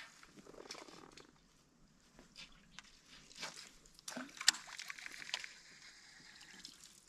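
Faint cranking of a fishing reel during a lure retrieve, a fine ticking whir with a few sharp clicks, the loudest about four and a half seconds in. Light water sloshing against a boat hull lies under it.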